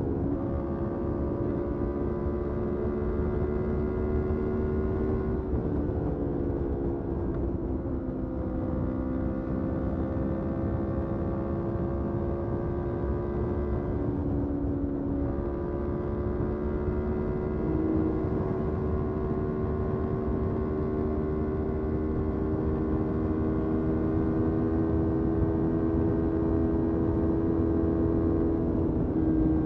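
Motorcycle engine running under way, its note climbing slowly and dipping briefly a couple of times, about five seconds in and again near the middle, over a steady rush of wind and road noise.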